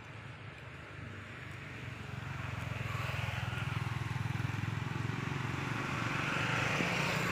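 A motor vehicle approaching, its engine hum and road noise growing steadily louder from about two seconds in.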